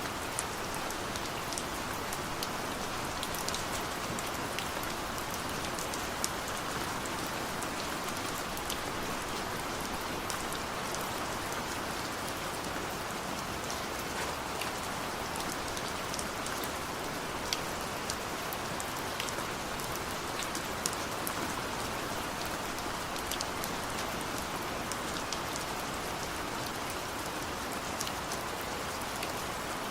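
Heavy rain falling steadily in a dense, even hiss, with many sharp individual drops ticking on a surface.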